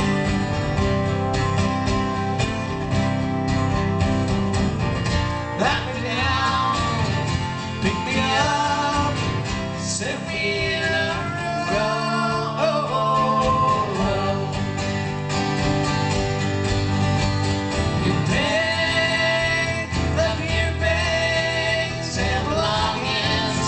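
Live country-rock band music led by strummed acoustic guitar, with a gliding melody line coming in over it about six seconds in.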